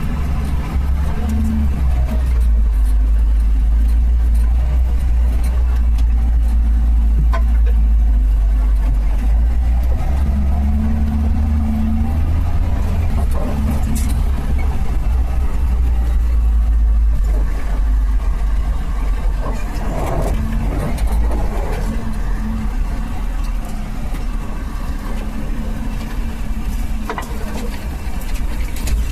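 Suzuki Samurai's engine running steadily as the 4x4 drives, with a deep rumble and a few short knocks and rattles.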